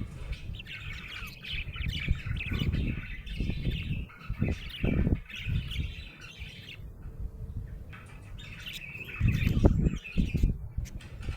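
Budgerigar chirping and chattering in stretches of rapid warble, with low knocks and thuds underneath, the loudest about halfway and again near the end.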